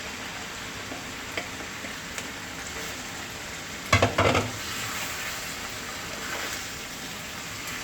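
Meat sizzling as it fries in a pan, just after being added. About four seconds in, a cooking utensil clatters and scrapes against the pan several times as the meat is stirred.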